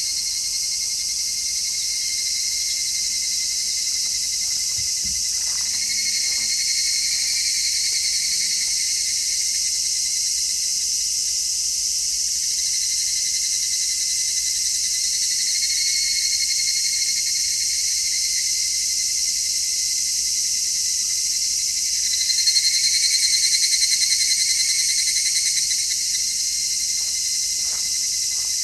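Dense chorus of midsummer cicadas: a steady, high shrill hiss, with a second, pulsing cicada call swelling in and out several times and loudest in the last third.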